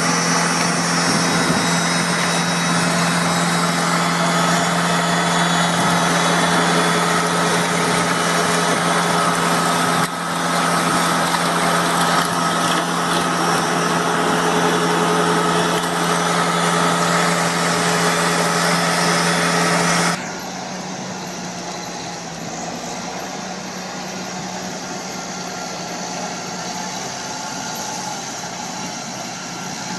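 Engine of large farm machinery running steadily with a steady hum. It changes abruptly about 10 seconds in, then about 20 seconds in switches suddenly to a quieter, duller engine sound.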